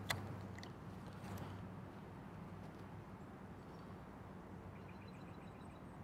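Faint riverside ambience with a steady low hum. A sharp click comes right at the start, followed by a few weaker clicks, and near the end there is a short, rapid series of faint high chirps like a small bird's call.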